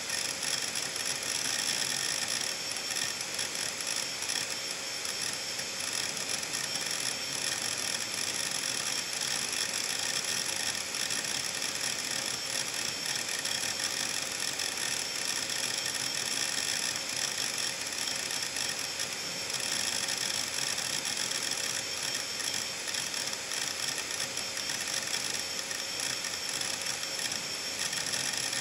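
Opened Seagate Medalist 8630 hard drive with its head actuator arm seeking rapidly back and forth, a fast unbroken chatter of clicks over the steady high whine of the spinning platters. The seeking comes from heavy simultaneous writes to many parts of the disk.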